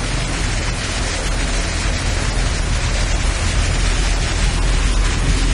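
Heavy rain pouring down: a loud, steady hiss with a deep rumble underneath.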